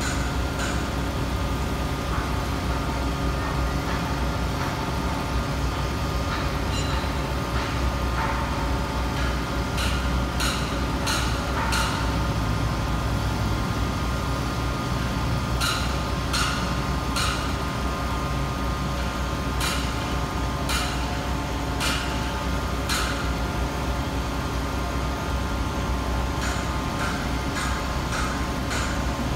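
Demag AC 350 mobile crane's engine running steadily while it lowers a lattice crane section, with sharp knocks now and then, several in quick clusters.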